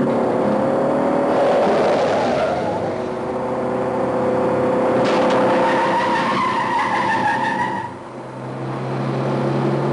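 Engines of a Renault 5 and a chasing Ford Transit van running hard, with tyres squealing through the bends; a long squeal rises about six seconds in and breaks off near eight seconds.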